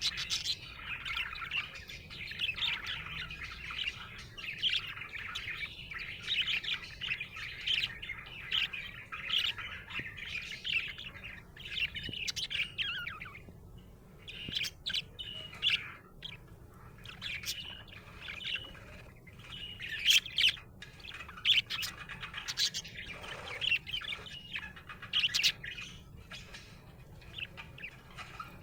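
Budgerigar chirping in a continuous chatter of quick, high chirps, with a few short pauses.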